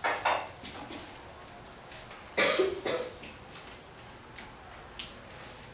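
Someone coughing twice: once at the very start and again about two and a half seconds in, over low room noise.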